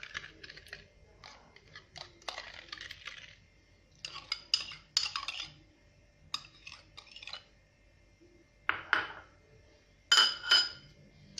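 A metal spoon scraping and clinking against bowls in bunches of short strokes, as dissolved yeast is stirred and scraped into a bowl of flour. About ten seconds in come the loudest clinks, ringing, as the spoon is knocked against the bowl.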